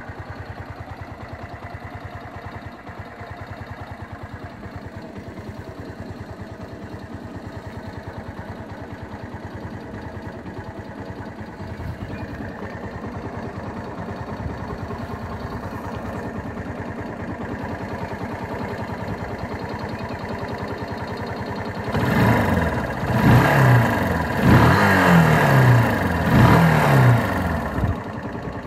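A 2016 Genata Gen Moto XRZ 125's four-stroke 125 cc engine idling steadily. Near the end it is revved in a series of quick throttle blips, the pitch rising and falling with each, before it drops back to idle.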